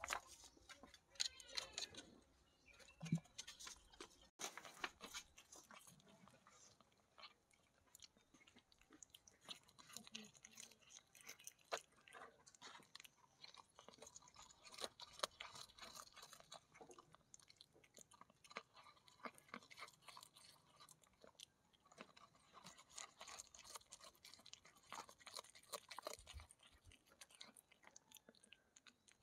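A cat chewing fish. It makes faint, irregular wet smacks and small crunches, with no steady rhythm.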